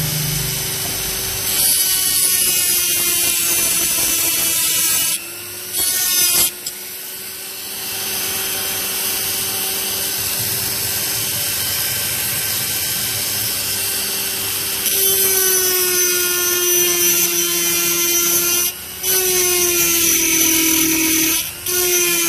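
Small electric drill running and drilling into the hinge of a Zippo lighter to free its broken top hinge. It stops briefly a few times, and its pitch sags as the bit bites, most clearly in the last third.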